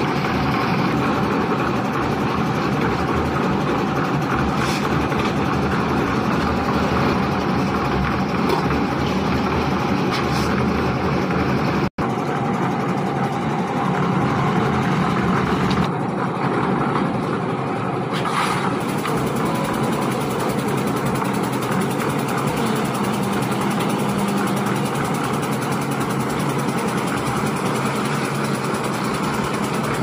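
Portable concrete mixer's engine running steadily while the drum turns. The sound cuts out briefly about twelve seconds in.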